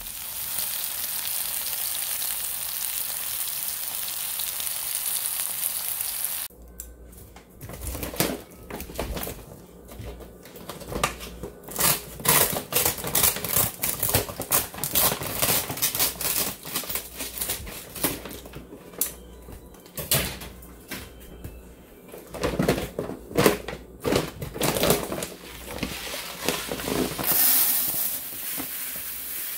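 Food being prepared in a kitchen: a steady hiss for about the first six seconds, then quick, irregular clicks and knocks of a knife and utensils working on a cutting board.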